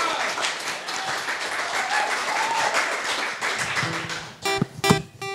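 Audience applauding, then about four seconds in an acoustic guitar and a mandolin start playing: a few separate plucked notes and chords with sharp attacks.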